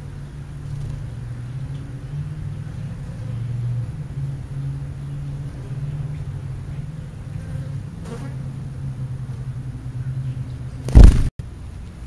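A flying insect buzzing close to the microphone, a low drone whose pitch wavers up and down. Near the end there is one loud knock, and the sound cuts out for an instant.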